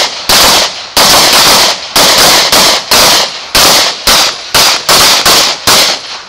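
Rapid pistol fire from several shooters with semi-automatic handguns: loud cracks about two to three a second, each with a short echo.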